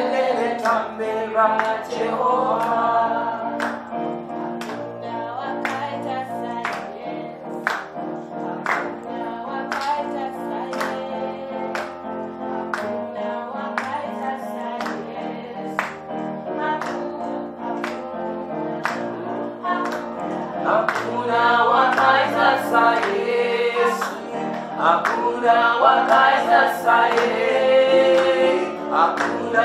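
Women's choir singing a gospel song in harmony over a bass line and a steady beat of about two strokes a second; the voices grow louder about two-thirds of the way through.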